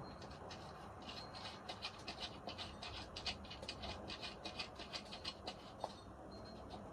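Faint, rapid scratchy clicking, about four or five a second, from a hand screwdriver turning a small drawer-knob screw home.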